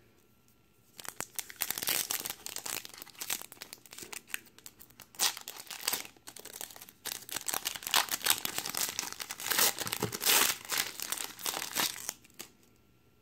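The foil wrapper of a Topps baseball card pack being torn open and crinkled by hand. The crackling starts about a second in and goes on in irregular bursts for about eleven seconds.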